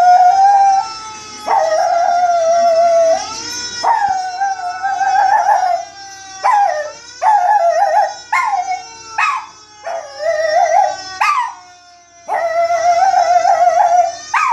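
A Chihuahua howling along with a fire engine siren sound effect: long wavering howls at first, a run of shorter yelping howls from about six seconds in, and another long howl near the end, over the siren's slowly falling wail.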